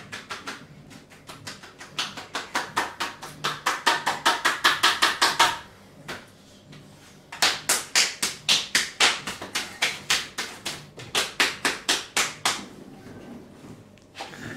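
Rapid rhythmic hand strikes of a hard Turkish barber massage: slaps on the body at about five or six a second in two long runs, with a pause of under two seconds between them and lighter strikes near the end.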